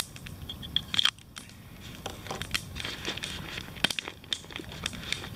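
Crinkling rustle of a nylon dry bag being rummaged through by hand, with scattered sharp clicks and crackles.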